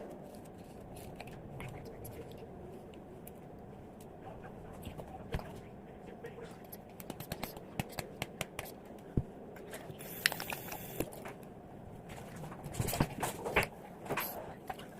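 Hands working wet clay slime: scattered sticky clicks, crackles and scrapes, with a short hissy scrape about ten seconds in and a cluster of louder clicks near the end.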